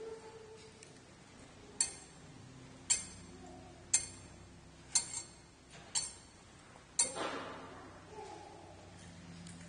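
Censer chains clinking against the metal thurible as it is swung to incense the Gospel book: six sharp metallic clinks about a second apart, the last ringing longest.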